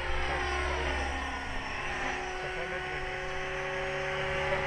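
Align T-Rex 550 electric radio-controlled helicopter in flight, its motor and rotor giving a steady whine that shifts slightly in pitch, over a low rumble of wind on the microphone.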